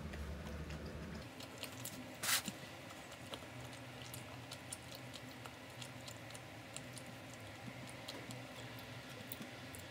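Scattered small clicks and taps, with one brief louder rustle about two seconds in, over a low hum that stops about a second in.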